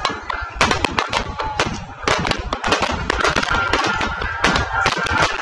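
Aerial firework shells bursting in rapid succession, many sharp bangs and crackles overlapping.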